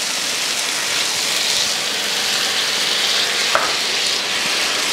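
Onion-tomato masala sizzling in a non-stick frying pan as water is poured in and the mixture is stirred with a spatula.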